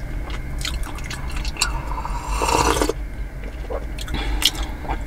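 A person sipping coffee from a metal mug, with one short slurp about two and a half seconds in, among small mouth and mug clicks over a low steady hum.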